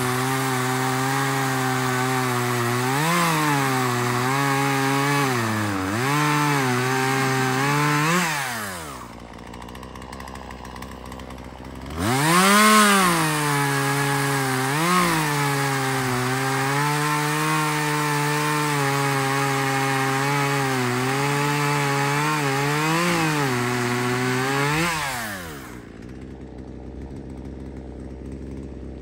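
Chainsaw cutting through a fallen tree's wood, its engine pitch dipping and recovering as the chain bites under load. About eight seconds in it drops back to idle, revs up again at about twelve seconds to cut once more, and returns to idle near the end.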